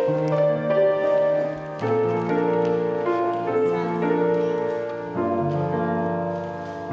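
Instrumental introduction of a slow, gentle song played on keyboard, with held chords that change about every two seconds.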